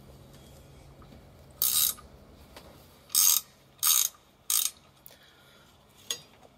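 Ratchet wrench clicking in four short bursts, each a quick back-stroke of the pawl, as an alternator mounting bolt is loosened, with a faint single click near the end.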